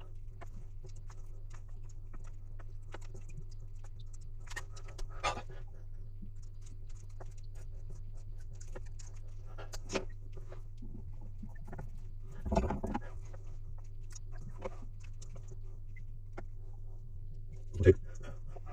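Steady low machinery hum with scattered clicks, rattles and knocks of tools and fittings being handled; the loudest knock comes near the end.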